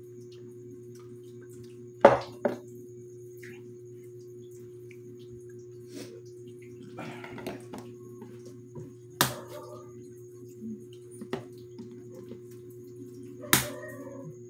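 Sharp knocks and clinks of balut eggs and a spoon against ceramic plates and the table: four distinct strikes, the loudest about two seconds in, with soft crackly handling of eggshell in between. A steady low hum runs underneath.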